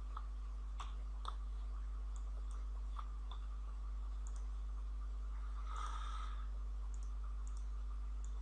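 Faint, scattered computer mouse clicks over a steady low electrical hum, with a brief soft rustle about six seconds in.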